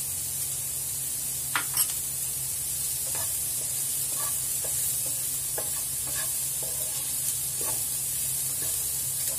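Chopped onions sizzling steadily in hot oil in a non-stick frying pan while a wooden spatula stirs and scrapes them in short strokes about twice a second. Two sharp knocks come about one and a half seconds in, and a low steady hum runs underneath.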